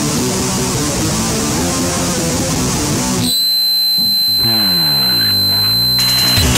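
Background rock music with distorted electric guitar. About halfway through it drops to a steady high whine and a low note sliding slowly downward, and the full band comes back in near the end.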